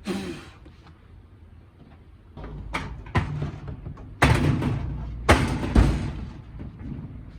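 Handling noises in a workshop: a short rustle, then a quiet stretch, two light clicks, a scraping rush about four seconds in, and two sharp knocks half a second apart, over a steady low hum.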